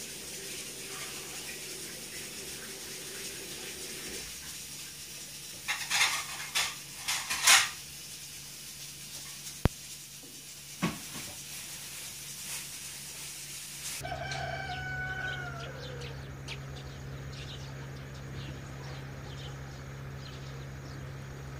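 A rooster crowing among rural background sounds, with a cluster of loud, sharp noises about six to eight seconds in. About two-thirds of the way through the background changes abruptly to a steady low hum.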